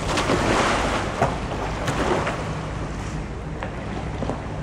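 Water splashing and sloshing as a sea kayaker rolls a capsized kayak back upright, loudest in the first two seconds and then settling.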